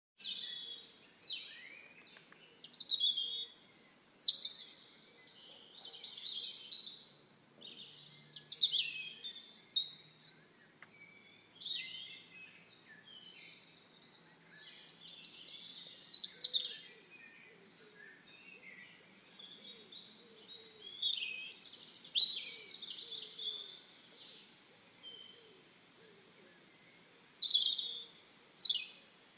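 Songbirds singing: high-pitched song phrases a second or two long, repeating every few seconds with short pauses between them.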